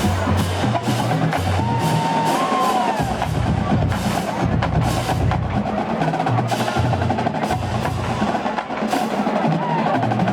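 Massed marching band drumline playing a cadence as the bands march in: rapid snare and rim strokes over a stepping pattern of low drums, loud and steady.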